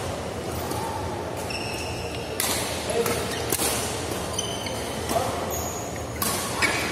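Badminton doubles rally: rackets striking the shuttlecock, a sharp hit every second or so from a little past the middle on. Short high squeaks of shoes on the court come in twice.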